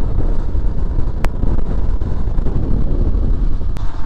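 Motorcycle engine running while riding, with wind rumbling on the helmet-mounted microphone. Two short clicks sound, about a second in and near the end.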